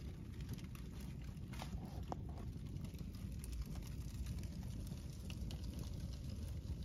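Paper bags burning in a fireplace: a steady low rumble of the flames with scattered small crackles and pops, a few sharper ones about two seconds in.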